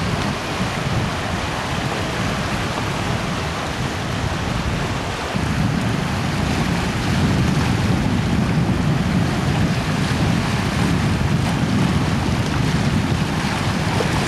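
Sea surf breaking and washing over shoreline rocks, with wind rumbling on the microphone. It gets louder about five seconds in.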